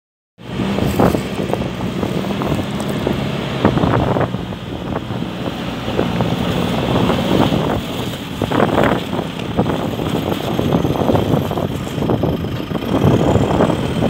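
JCB 3CX backhoe loader's four-cylinder diesel engine running steadily as the machine drives forward.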